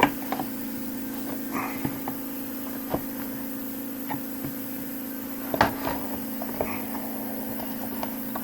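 Scattered clicks and light knocks of small mower fuel-system parts being handled, over a steady low hum.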